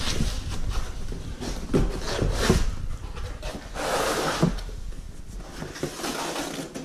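Long cardboard shipping box being opened by hand: several sharp knocks and cardboard flaps pulled open, with loud scraping and rustling about four seconds in as the carton is handled, and a cardboard tube starting to slide out of it near the end.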